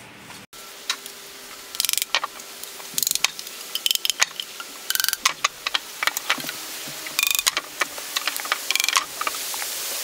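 Plastic PVC pipes and fittings being handled on a table: a run of sharp clicks and knocks, some in quick rattling clusters, as pieces are picked up, knocked together and set down.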